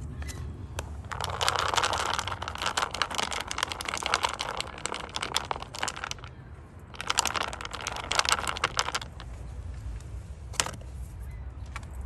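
Dry cat kibble rattling and clattering in a plastic tub as it is shaken, in two bursts of quick clicking: a long one starting about a second in and a shorter one past the middle.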